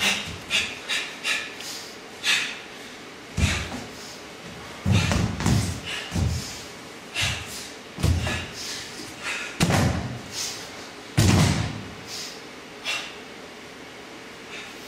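Barefoot dancers' feet and bodies landing and pushing off the stage floor. Irregular heavy thuds, the loudest about three quarters of the way through, come between many short sharp scuffs.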